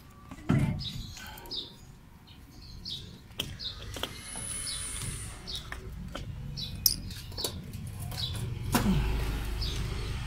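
Small birds chirping repeatedly over a series of knocks and clunks as a car battery is set down into its metal tray and its cable terminals are fitted. A low steady hum builds near the end.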